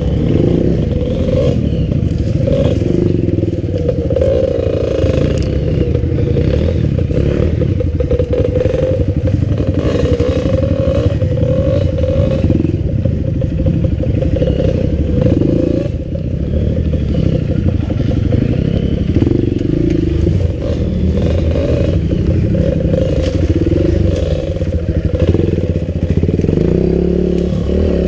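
Enduro motorcycle engine running steadily as the bike is ridden along a rough trail.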